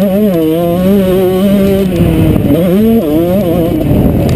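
Motocross bike engine at high revs, heard from the rider's helmet camera. It holds a steady pitch, dips and rises twice as the throttle is worked, and turns rougher and noisier near the end.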